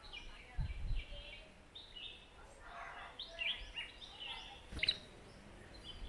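Red-whiskered bulbuls chirping with many short, quick notes. A low bump comes about half a second in and a sharp click near the end.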